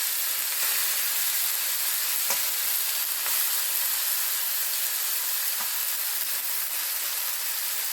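Chopped taro leaves frying in hot oil in a kadai: a steady sizzle, with a couple of faint taps.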